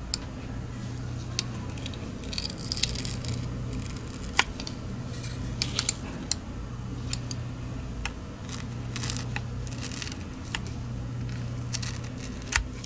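Adhesive feet being pried and peeled off the plastic underside of a Logitech MX Anywhere 3 mouse with tweezers: short scraping and tearing sounds with scattered sharp clicks, over a steady low hum.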